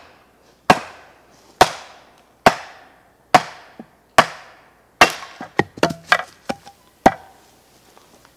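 A wooden mallet striking the back of a hatchet to drive it down into a quartered green birch log, splitting it. There are seven sharp knocks at a steady pace, a little under one a second, with a quicker run of lighter knocks and cracks near the end.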